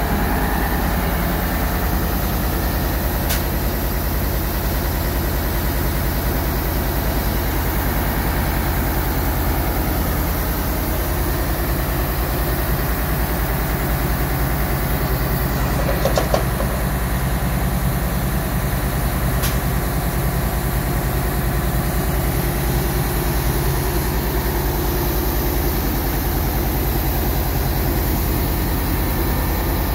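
Wirtgen W1900 cold milling machine's diesel engine idling steadily, with a brief sharp knock about halfway through.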